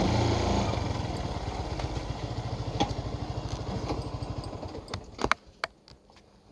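Motorcycle engine idling with a rapid, even low pulse, loudest at the start, then stopping suddenly about five seconds in. A few sharp clicks follow.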